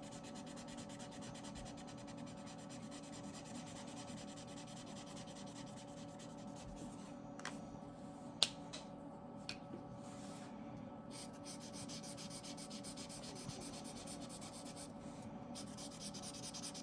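Marker nib rubbed back and forth over paper in quick, even strokes, going over a coloured area to smooth it out. One sharp click about halfway through.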